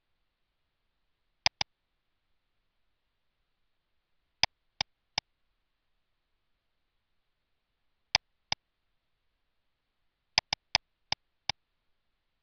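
Computer mouse button clicks in small groups: a quick double click about a second and a half in, three clicks around the middle, two more a few seconds later and a run of five near the end, with dead silence between them.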